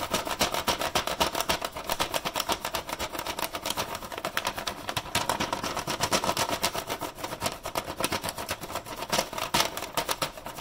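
Side of a colored pencil rubbed rapidly back and forth over paper laid on a basket, a dense scratchy rasping of many quick strokes a second as it picks up the basket's texture.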